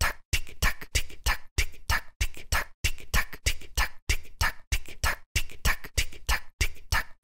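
A dry, rhythmic percussive beat: low kick-like thumps and hissy snare-like hits repeating about three times a second.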